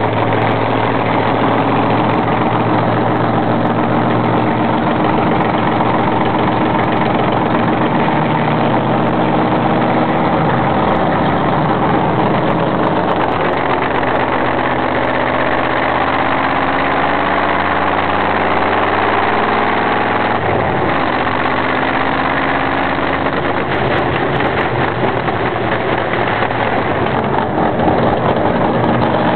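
Ford V8 (about 300 hp) of a historic Turismo Carretera race car, heard from on board, running hard at racing speed. Its pitch repeatedly climbs and drops as the car accelerates and slows through the course.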